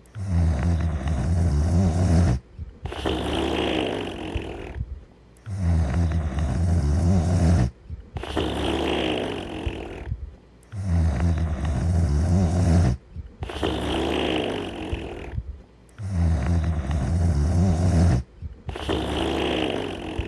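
Steady, rhythmic snoring of a sleeping character. Each breath is a deep, low snore about two seconds long, followed by a higher, breathy one of about the same length. Short silent gaps separate them, and the cycle repeats about every five and a half seconds.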